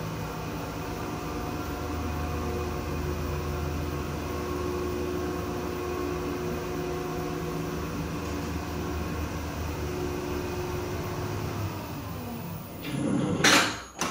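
Aesy platform lift's drive running with a steady mechanical hum while the hold-to-run button is kept pressed and the car travels between floors. The hum stops about two seconds before the end, followed by a brief loud noise.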